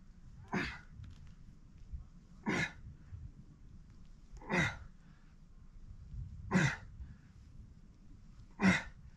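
A man's forceful breaths out, one short hard exhale about every two seconds, five in all, each timed to a pull of a seated row exercise.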